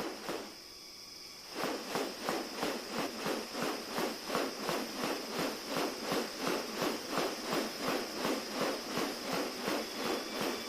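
Bird-of-paradise giving a rapid series of harsh, repeated calls, about three a second, starting a second and a half in, over a steady high insect drone.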